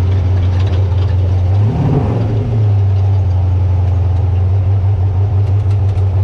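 A trophy truck's engine idling steadily, with one short rev about two seconds in.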